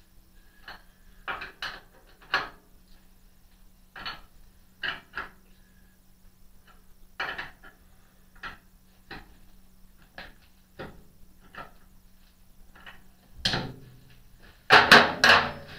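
Scattered clicks and knocks as the RF-31 mill-drill's head and quill controls are handled, with a louder burst of knocks and clatter near the end, over a faint steady hum.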